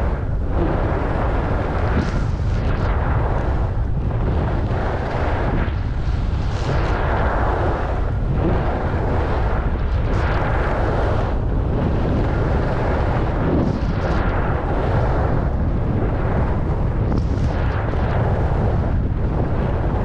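Wind buffeting the microphone as a steady low rumble during a fast downhill ski run. Over it, the hiss of skis carving groomed corduroy snow swells and fades with each turn, every second or two.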